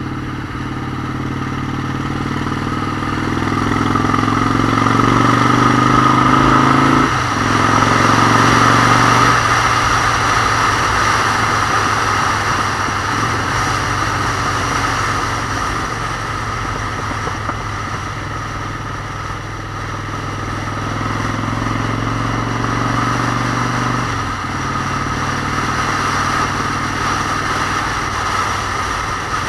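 Motorcycle engine pulling hard, its pitch climbing for several seconds and then breaking at a gear change about seven seconds in. It climbs again later and drops at another shift near the end, over a steady rush of wind on the microphone.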